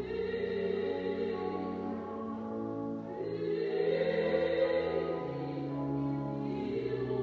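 Church pipe organ playing slow, sustained chords over a held bass note, the chords changing every second or two and growing louder about halfway through.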